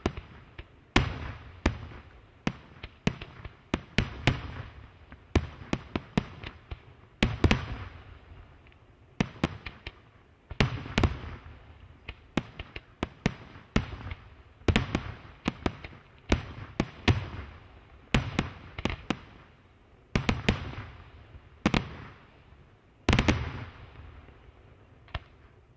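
Aerial firework shells bursting in a rapid, irregular series of sharp bangs with echoing tails, one every second or so and often in quick clusters. The barrage thins out to a few fainter pops near the end.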